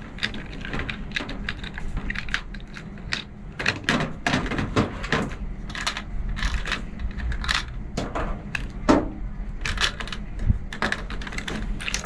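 Small plastic toy pieces clicking and tapping against a plastic Polly Pocket compact as they are pressed into place, in a quick irregular run of light clicks.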